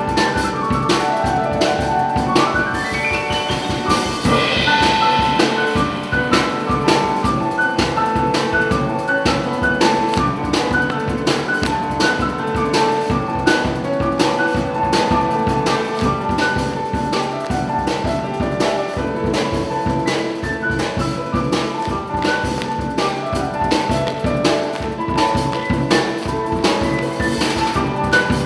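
Live drum kit and piano playing together, the drums keeping a busy beat under held piano notes, with a quick rising run of notes about two seconds in.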